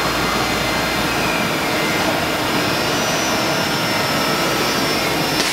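DMU 70 eVolution five-axis machining centre running as its swivel table tilts back, a steady mechanical whoosh with faint whines from the drives. Near the end the hiss turns brighter.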